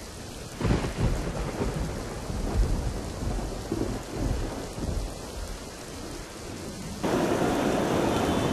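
Thunder rumbling over heavy rain. About seven seconds in it cuts abruptly to a louder, steady hiss of heavy rainfall.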